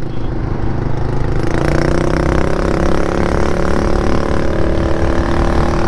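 Yamaha Majesty C scooter's single-cylinder engine pulling under throttle while riding, its note rising a little over the first couple of seconds and then holding steady, with wind noise rushing over the microphone.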